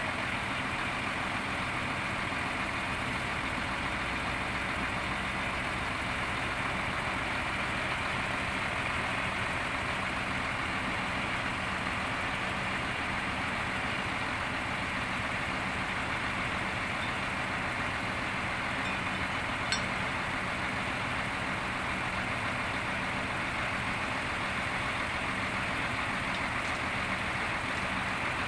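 Heavy diesel engine of a crane lorry or backhoe running steadily, with one short click about two-thirds of the way through.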